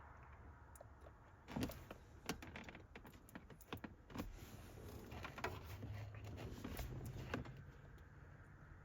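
Faint, irregular clicks and taps from the buttons of a handheld OBD-II scan tool being pressed to clear trouble codes.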